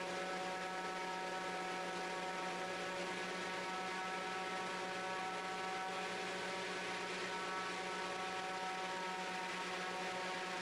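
Raptor prototype's turbocharged diesel engine running steadily at about 90% throttle during a ground run-up, heard inside the cockpit as an even drone with a fixed pitch.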